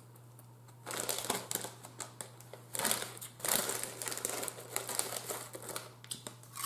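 Crinkling of a Lay's potato chip bag as a hand rummages inside it and pulls out a chip, starting about a second in and loudest around the middle.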